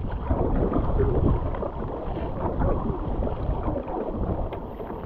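Wind buffeting the microphone in a low, steady rumble over water sloshing and paddle strokes as an inflatable stand-up paddleboard is paddled across a choppy loch.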